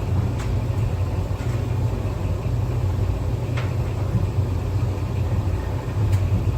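Euhomy 850W portable clothes dryer running: a steady low hum with a few faint taps.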